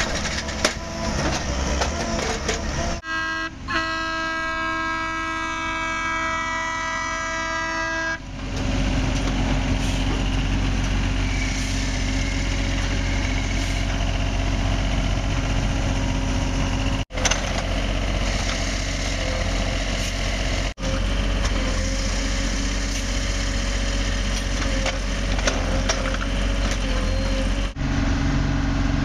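Diesel engines of railway track maintenance machines running, with clanks from the machine's workhead on the rail in the first seconds. About three seconds in, a multi-note air horn sounds steadily for about five seconds.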